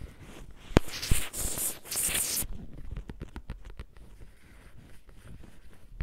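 Headphone cable and plug handled close to the microphone as an ASMR trigger: two sharp clicks about a second in, a loud scratchy rustle for about a second and a half, then a run of light, quick tapping clicks.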